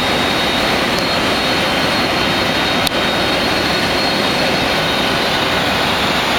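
Boeing 747 freighter's jet engines running steadily: a continuous rushing noise with a faint high whine, and a single short click about three seconds in.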